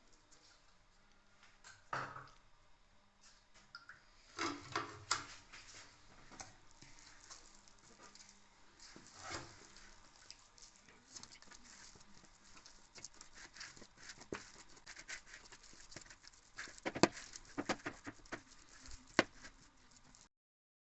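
Food-preparation handling sounds: scattered light taps, clicks and rustles, with a cluster of sharper knocks near the end. The sound cuts off just before the end.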